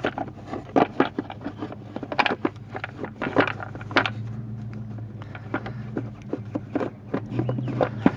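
Irregular clicks, taps and scrapes of hands handling parts while a crankcase ventilation filter is fitted into a truck engine, over a steady low hum.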